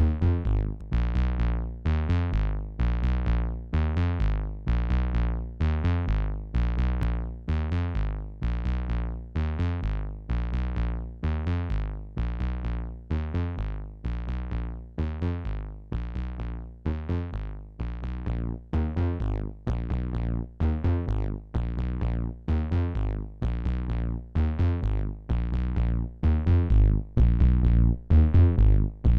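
Bass synthesizer line distorted through a Gamechanger Audio Plasma pedal, which drives the signal through high-voltage discharges in a xenon-filled tube. It plays a looping bass pattern of short, sharply struck notes, about two a second, and grows louder near the end.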